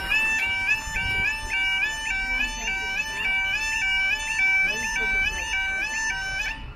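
Level crossing alarm on a manually controlled barrier crossing: an electronic two-tone yelp stepping between a higher and a lower pitch about twice a second while the road barriers rise. It cuts off suddenly near the end as the barriers finish raising, and there is a single sharp knock right at the start.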